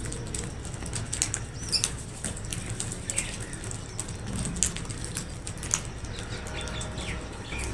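Crows flapping their wings and scuffling over food, with many short clicks and taps and a few brief high chirps, over a steady low rumble.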